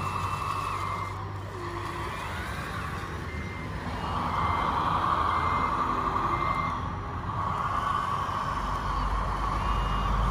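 Reversing alarm on a scale RC truck beeping, short beeps about once a second, over the truck's running noise, which grows louder twice.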